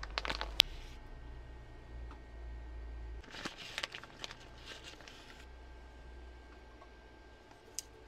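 Plastic sausage packet crinkling and tearing as it is pulled open, with a few sharp clicks at first and a longer run of crinkling about three and a half to five and a half seconds in.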